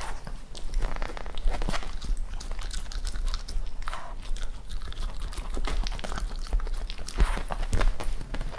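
A Cavalier King Charles Spaniel chewing and biting raw chicken, the soft bones crunching in many irregular sharp crunches and clicks.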